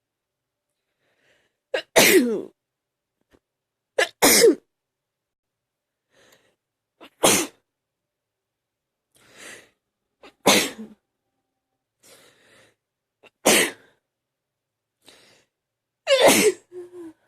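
A person having a sneezing fit: six loud sneezes about three seconds apart, each starting with a sharp catch of breath. Quieter breaths come in between.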